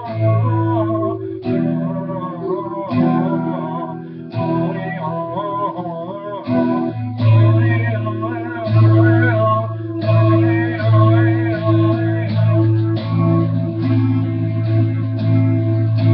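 Guitar being played by hand, chords and melody notes changing every second or so over held low bass notes.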